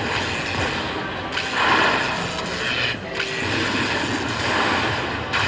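Lightning Link: Sahara Gold slot machine playing its jingling tally music as it adds up the coin prizes at the end of the bonus, over the din of the casino floor.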